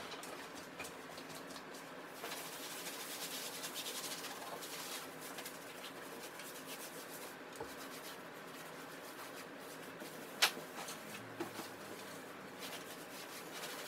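Faint, continuous scratching and rubbing of hand-scrubbing, made up of many small ticks, with one sharp click about ten seconds in.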